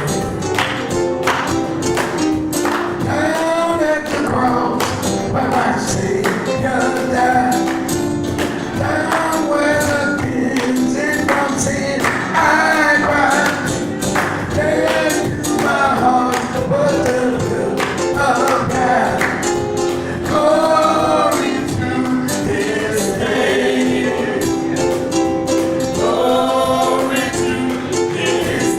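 A gospel worship song: voices singing over a steady percussive beat.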